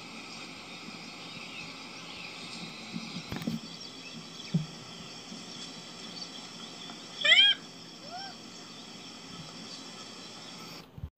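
Eastern black rhinoceros giving a short, high squealing call that rises and falls about seven seconds in, followed by a fainter, shorter one, over a steady background hiss.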